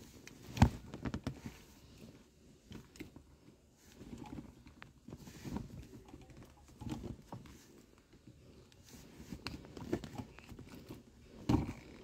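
Clicks and knocks of a screwdriver prying at the push-fit catch under a Maruti Suzuki Dzire's stock gear-shift knob while the knob is worked upward by hand, with handling rustle in between. A sharp click about half a second in is the loudest, and another comes near the end.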